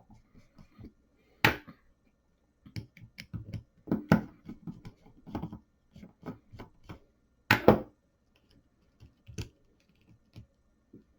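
Small metal lock parts and tools being handled while the lock is taken apart: irregular clicks and taps, with two louder knocks, one about a second and a half in and one just before eight seconds.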